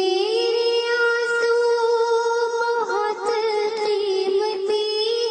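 A young girl's voice singing an Urdu naat: she slides up at the start into one long note and holds it steady without a break.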